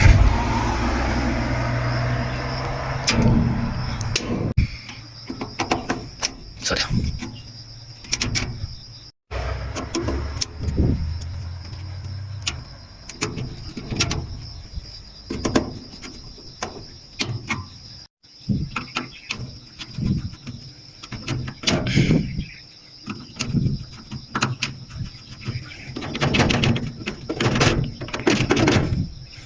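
Irregular clicks, knocks and clatter of hands working on the contactors and wiring inside a street-light electrical cabinet, over the steady high chirring of crickets. A low hum sounds in the first few seconds and again briefly near the middle.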